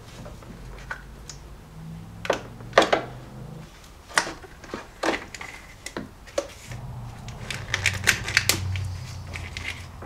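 Irregular clicks, snips and crackles of electrical tape and plastic split wire loom being cut and pulled off battery cables with side cutters, coming thicker about eight seconds in.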